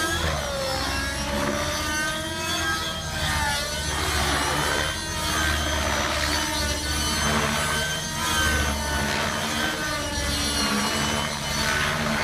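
Radio-controlled helicopter in flight, its rotor and drive whine rising and falling in pitch again and again as it flies aerobatic manoeuvres, over a steady low rumble.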